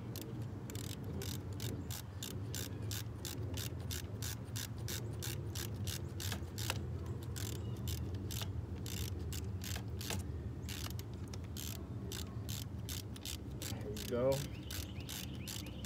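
Socket ratchet clicking in quick runs as the bolts holding a new ignition coil and its ground wire are tightened in a 1999 Mazda B3000's engine bay, over a steady low hum.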